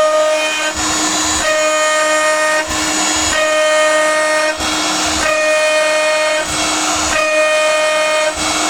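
DIY CNC router's high-speed spindle driving a two-flute carbide endmill through mild steel at 19,000 RPM on an adaptive toolpath. A steady high-pitched cutting tone with overtones breaks every second or so into a short noisier rasp, then returns as the cutter moves in and out of the cut.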